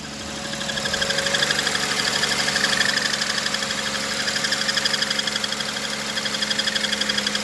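Ford 3.5-litre V6 idling with its accessory belt off, a fast, even ticking knock running over the steady engine hum. The mechanic pins the noise on the chain-driven water pump, coming from the engine's valley.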